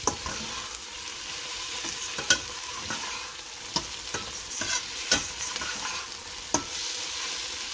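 Diced tomatoes and onion masala frying with a steady sizzle in a stainless steel pot while a metal slotted spatula stirs them, scraping the pot and striking it in several sharp clinks.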